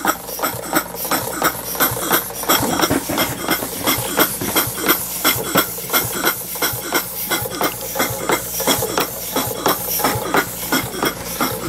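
Small model steam engine running at a steady speed, its exhaust puffing evenly about four times a second over a continuous hiss.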